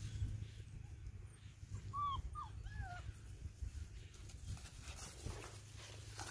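German shorthaired pointer puppy whimpering: three or four short, high whines about two seconds in, over a steady low rumble.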